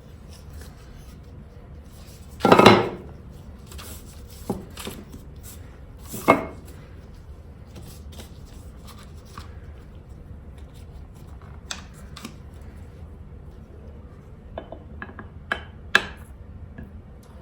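Metal hand tools being handled on a workbench: scattered clanks and clicks as a cast-iron hand plane and its parts are picked up and set down. The loudest clank comes about two and a half seconds in, another at about six seconds, and a quick run of small clicks near the end.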